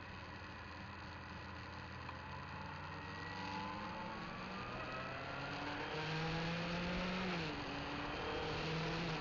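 Motorcycle engine heard from the bike itself, accelerating through the gears. Its pitch climbs, drops at a gear change about seven and a half seconds in, then climbs again, over wind and road noise.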